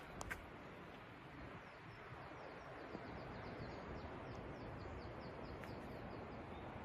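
A small songbird calling a quick series of short down-slurred notes, about five a second, for a few seconds, over a steady rushing background.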